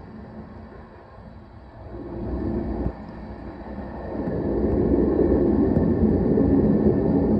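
Freight train tank cars rolling past: a steady rumble of steel wheels on rail. It sinks low for the first two seconds, gives one sharp knock about three seconds in, then swells louder from about four seconds on.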